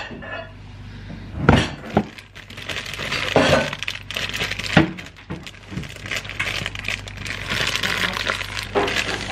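Paper pancake-mix bag being handled and pulled open by hand, crinkling and crackling, with a few sharp knocks in the first half.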